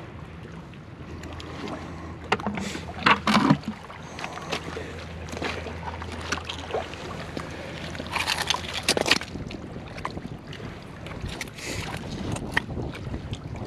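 Oyster shells and rocks crunching and knocking underfoot and as they are turned over by gloved hands on a muddy oyster bed, with the loudest clatters about three seconds in and again around eight to nine seconds. A low steady hum runs underneath and fades out about seven seconds in.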